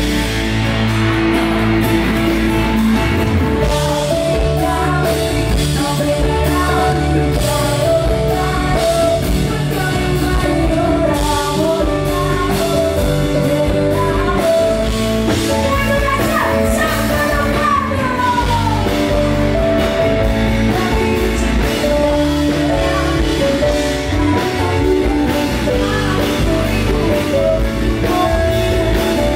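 Live pop-rock band playing through a PA: a woman sings into a microphone over electric guitar and a drum kit.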